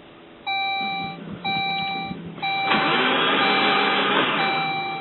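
Inside the cabin of a 1999 Saab 9-3, the dashboard warning chime beeps about once a second. About two and a half seconds in, the starter cranks the engine for about a second and a half, and the engine does not catch: a crank-no-start after a head gasket replacement.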